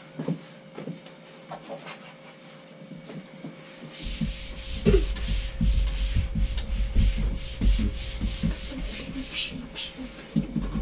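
Fabric rustling and rubbing as bedding is handled, faint at first and much louder from about four seconds in, with many quick scraping strokes over a low rumble.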